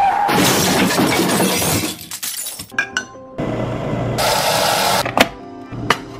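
Background music with a loud noisy sound effect like something shattering in the first two seconds, then a burst of hissing noise around four seconds in and a few sharp clicks near the end.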